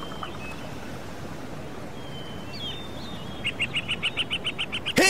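Outdoor ambience with a steady hiss and scattered bird chirps, then a fast run of repeated chirps over the last second and a half. A rock band comes in loudly right at the end.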